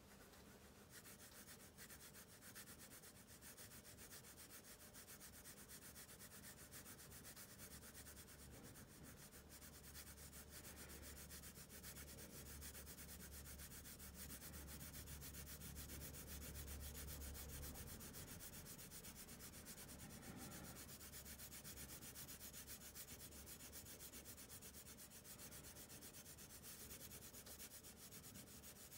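Faint scratching of a coloured pencil shading on drawing paper in quick, continuous strokes, laying down a base layer of colour.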